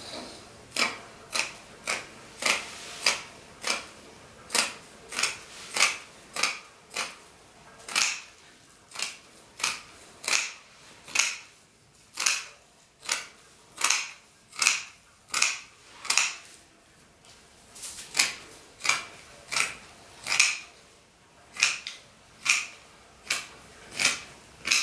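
Fabric scissors cutting through the top layer of dress fabric: a steady run of sharp snips, about two a second, with a few brief pauses.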